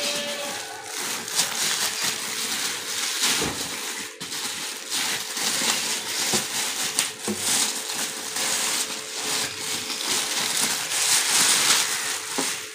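Clear plastic wrap crinkling and rustling continuously as it is torn and pulled off by hand.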